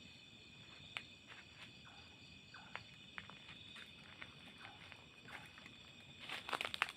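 Faint steady high-pitched chirring of night insects with scattered light ticks, then crunching footsteps on dry ground in the last second.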